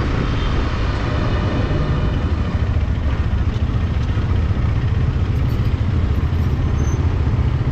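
Motorcycle engine running steadily under way, a continuous low drone with a rush of noise over it.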